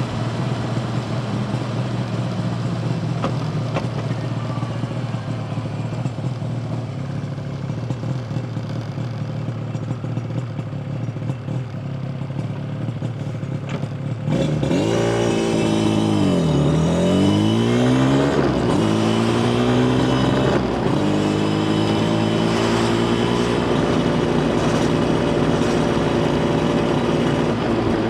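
Yamaha TZR250 1KT's two-stroke parallel-twin engine, first running steadily at low revs, then about halfway through getting suddenly louder as the engine pitch drops, climbs again and settles into a steady higher note under way.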